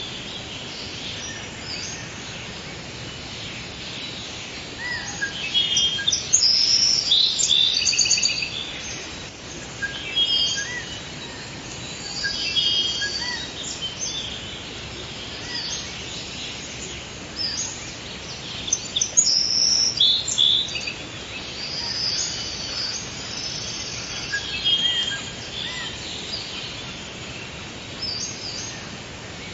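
Forest ambience: several songbirds chirping and trilling in bouts, over a steady soft hiss.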